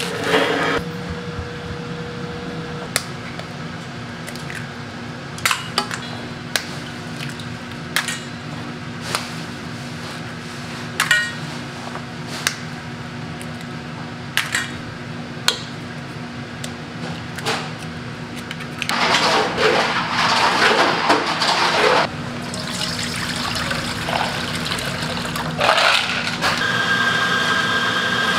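Eggs cracked one after another on the rim of a stainless steel bowl, a sharp crack every second or two, then liquid poured into a steel bowl with a loud rushing splash for a few seconds near the end. A steady low hum runs underneath.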